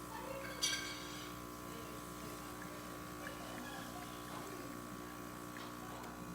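Gaggia Baby espresso machine's vibratory pump humming steadily under high pressure, pushing water through a grind too fine for the machine so the shot barely drips. A brief sharp high sound about a second in.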